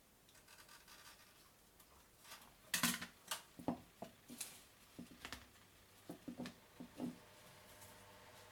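A run of light clicks and knocks from small tools and connector parts being handled while soldering battery leads, about a dozen over four seconds, with a faint steady hum starting near the end.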